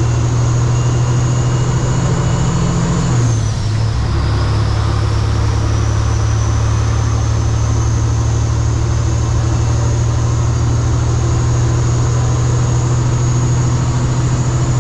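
Kenworth W900 semi truck's diesel engine running under load on an uphill grade, with a high whine above it. About three and a half seconds in, the engine note and the whine drop, then the whine slowly climbs back as the engine pulls again.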